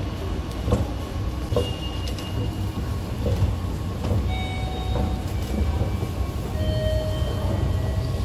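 Mitsubishi down escalator running: a steady low rumble from the moving steps and drive, with scattered light clicks and a few short, faint high tones.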